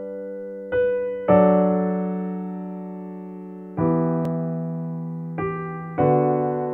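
Slow solo piano music for sleep: chords struck every second or two, each ringing out and slowly dying away.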